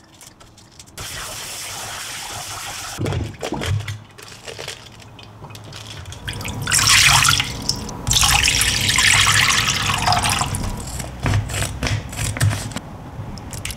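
Kitchen tap running into a stainless-steel sink as bok choy is rinsed in a plastic colander, with a few knocks about three seconds in and loud splashing of water for a few seconds in the middle. A few small clicks near the end.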